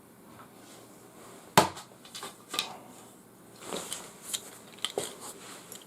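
Hands rummaging through small items on a table: a sharp knock about a second and a half in, then scattered clicks and rustles.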